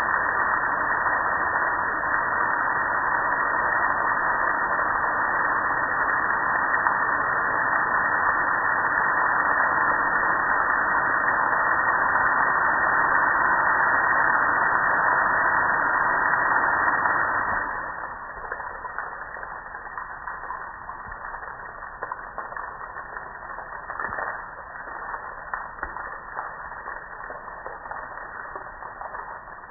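A steady hiss of water spraying onto a gas grill, which stops about 18 seconds in, leaving water dripping and trickling off the grill with small irregular ticks.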